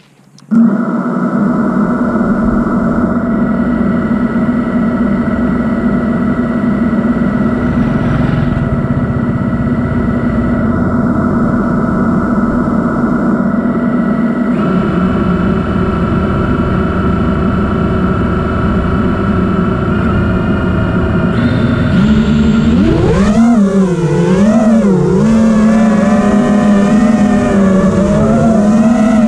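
FPV freestyle quadcopter's Brotherhobby T1 2205 brushless motors with Ethix P3 props, armed and spinning with a steady whine. About 22 s in, the pitch begins to rise and fall repeatedly as the throttle works for takeoff and flight.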